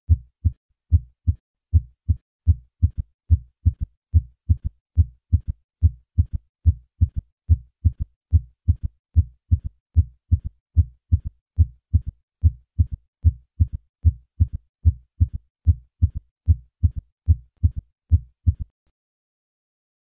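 Heartbeat heard through a stethoscope with a third heart sound (S3 gallop): a steady train of low-pitched thuds, about two a second, with a faint low-pitched early-diastolic sound just after the second heart sound. It stops shortly before the end. An S3 can be normal in young adults; in patients over 40 it usually means a decreased ejection fraction, and it can occur in volume overload such as mitral regurgitation.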